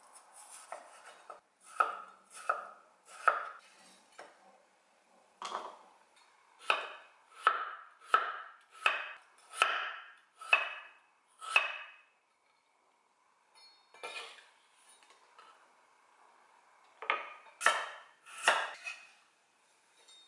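Kitchen knife slicing a peeled raw potato on a wooden cutting board: a steady run of crisp cuts, about one every two-thirds of a second, each ending in a knock on the board. After a short pause, a few more sharp knocks near the end.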